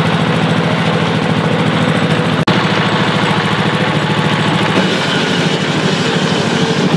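Small engine of an ice-block crusher running steadily with a fast, even pulse.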